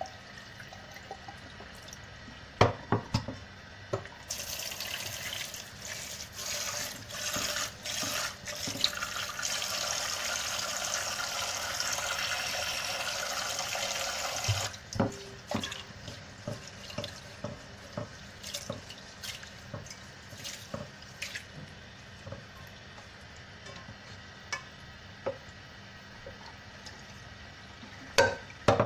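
Rice being rinsed in a rice cooker's inner pot at a sink. A tap runs into the pot for about ten seconds and then stops, followed by splashing and dribbling as the cloudy rinse water is poured off. A few sharp knocks come as the pot is handled.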